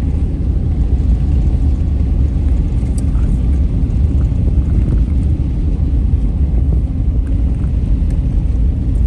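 Steady low rumble of a vehicle being driven, its engine and road noise heard from inside the cabin.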